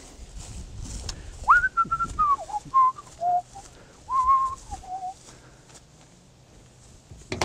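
A man whistling a short tune: a few held notes that step and slide up and down, starting about a second and a half in and stopping about five seconds in.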